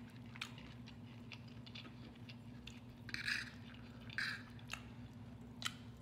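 Close-miked eating sounds: soft chewing and wet mouth clicks from people eating shrimp in butter sauce and fried rice, with two louder wet bursts a little after the middle and a sharp click near the end, over a low steady hum.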